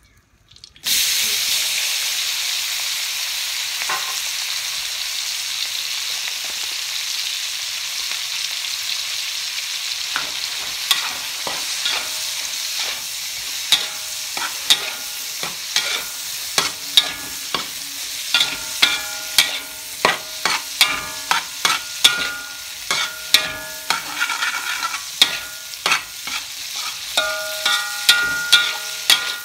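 Food sizzling in hot oil in a steel wok, the sizzle starting suddenly about a second in. From about ten seconds on, a metal spatula stir-fries meat and vegetables, scraping and striking the wok over and over, one to two strokes a second, many strokes leaving the wok ringing briefly.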